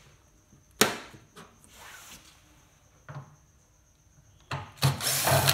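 A sharp plastic snap about a second in as the washing machine's drain pump cover is pried open with a flathead screwdriver. Near the end a cordless drill/driver runs briefly, backing out the screw of the bottom plastic panel.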